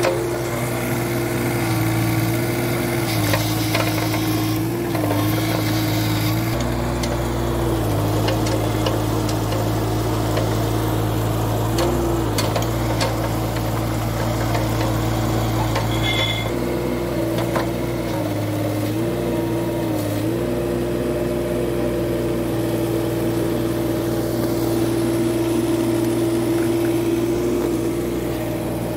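Mini excavator engine running steadily at working revs, its pitch sagging briefly several times and recovering as the machine takes load while digging and moving.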